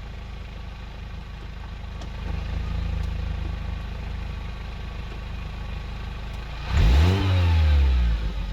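VW Golf Mk4 2.0 four-cylinder petrol engine, stock exhaust, idling steadily; near the end it is revved once, the pitch rising sharply and then falling back toward idle.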